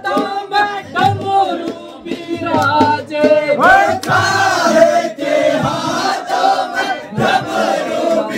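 A group of men singing a Holi folk song together in chorus, with a few sharp drum strikes.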